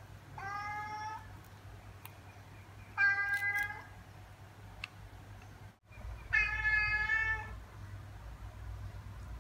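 Domestic cat meowing three separate times, the last call the longest: a hungry cat demanding to be fed.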